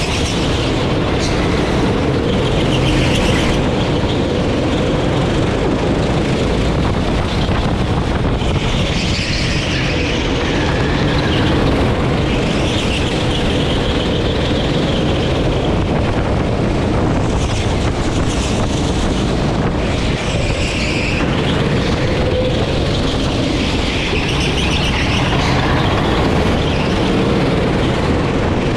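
Sodi rental kart's engine running at racing speed, heard from onboard the kart: a loud, steady drone whose upper part swells and eases every few seconds.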